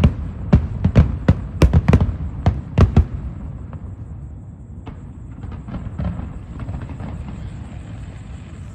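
Aerial firework shells bursting: a rapid string of sharp bangs for about the first three seconds, then a quieter stretch of faint crackling and low rumble.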